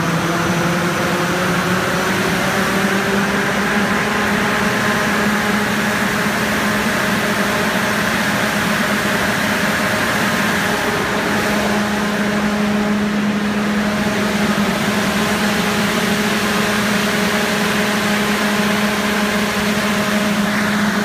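The Jet precooler's two large electric fans, driven by a variable frequency drive, speeding up from half speed (30 Hz) to full speed (60 Hz): a loud rush of air with a motor and blade hum that rises in pitch over the first few seconds, then runs steady at full speed.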